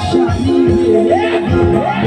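Loud music: a melody of held and sliding notes over a drum beat.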